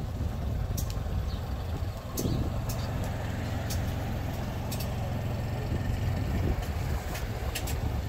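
City street ambience: a steady low rumble of traffic on the avenue, with a few short, sharp high clicks scattered through it.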